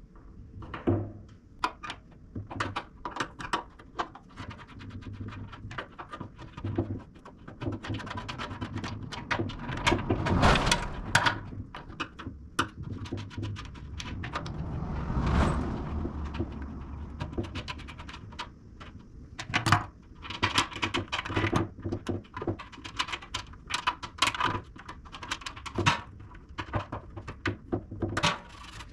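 Spanner and socket clinking and knocking against a 1967 VW Beetle's steel fuel tank as nuts and bolts are worked out of holes drilled in its underside: irregular metallic clicks and taps, with two longer, louder scraping swells about ten and fifteen seconds in.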